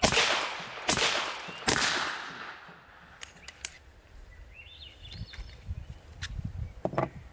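Three shots from a 9mm BinTac T9 semi-automatic big-bore PCP air pistol, fired in quick succession less than a second apart, each a sharp crack that fades away. A few faint clicks follow.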